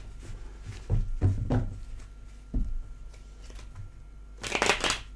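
Tarot cards being handled on a table: a few soft thumps in the first half, then a brief shuffling rustle near the end.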